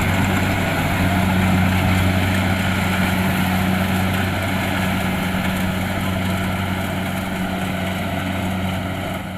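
Kubota DC-70 Plus rice combine harvester's diesel engine running steadily, a low drone that slowly grows quieter over the last few seconds.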